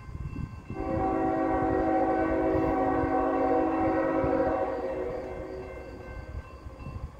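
Diesel locomotive horn of an approaching coal train blowing one long blast for the grade crossing: a multi-note chord that starts about a second in, holds for roughly four seconds, then fades away.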